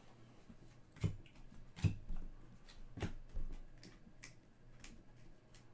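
Soccer trading cards flipped one by one from a stack held in the hands, each card going over with a light snap; several irregular snaps, the sharpest about one and two seconds in.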